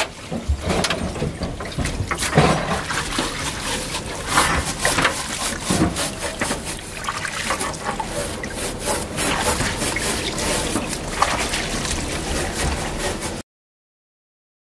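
Engine parts and a rag being scrubbed and sloshed by hand in a basin of black, oily cleaning liquid, with irregular splashes and clinks of metal parts against each other and the basin. The sound cuts to dead silence shortly before the end.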